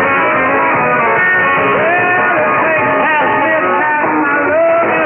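Guitar-led rock music from a shortwave pirate radio broadcast, received in AM mode on a software-defined radio.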